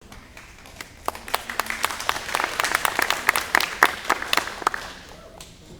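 Small audience applauding, with separate claps that build up and then die away shortly before the end.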